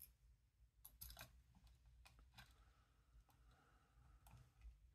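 A handful of faint, sharp clicks from a tiny screwdriver tip prying and ticking against the edge of a small plastic camera housing, over near silence.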